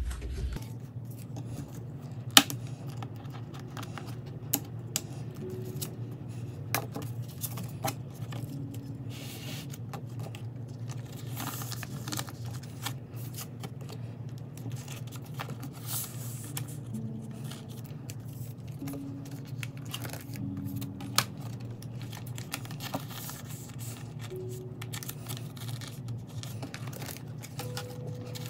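Plastic binder sleeves and cards rustling and crinkling as postcards are handled and slid into the pages, with scattered sharp clicks and taps. The loudest tap comes about two seconds in.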